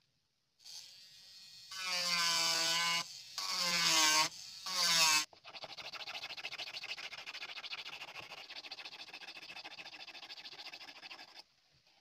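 A PVC block rubbed by hand on sandpaper. Three loud, squealing scrapes come first. They are followed by several seconds of fast, even back-and-forth sanding, a gritty rasp that stops shortly before the end.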